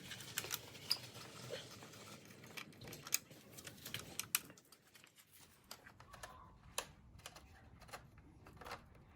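Irregular light metallic clicks and taps of hex keys working small bolts loose and handling them.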